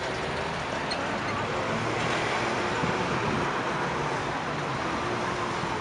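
Classic cars driving slowly out of a lot, a steady wash of engine and road noise without distinct revs or bangs.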